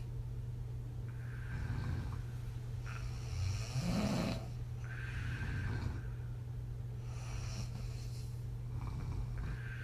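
A woman snoring on her back, each breath blown out through loose lips. The breaths repeat about every two seconds, the loudest one a little under halfway through with a low rattle in it.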